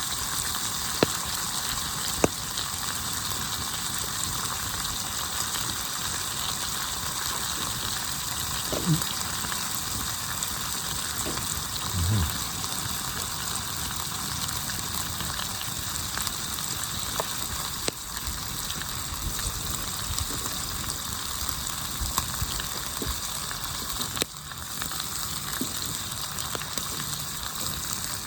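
Pieces of steak sizzling in a pan over low heat: a steady fizzing hiss with a few sharp crackles and clicks.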